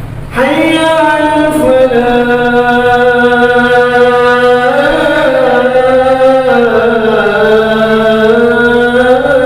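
A muezzin chanting in one long melismatic held phrase, the pitch slowly stepping and bending. It starts after a short breath at the very beginning.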